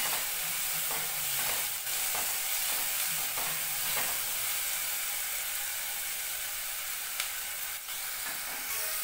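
Sliced onions, garlic, ginger, green chillies and curry leaves sizzling steadily in hot coconut oil in a nonstick pan as they sauté, with a few short scrapes of stirring.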